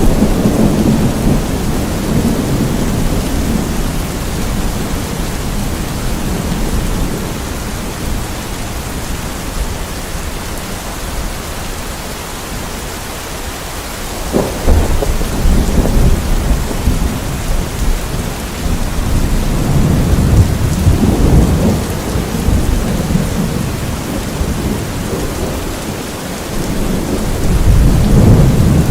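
Steady heavy rain with thunder rumbling several times, the deep rumbles swelling and fading. A sharper clap about halfway through starts a long roll.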